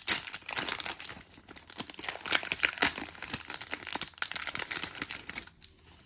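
Trading card pack wrapper being torn open and crinkled by hand, a dense crackling that stops about five and a half seconds in.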